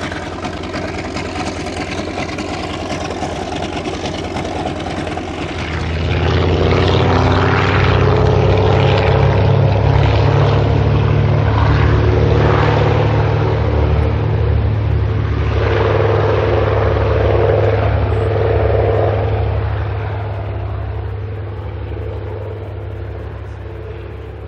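Grumman TBM-3E Avenger's Wright R-2600 Cyclone 14-cylinder radial engine idling with a rough, pulsing beat. About six seconds in it switches abruptly to full takeoff power, much louder and steady, then fades gradually over the last several seconds as the plane climbs away.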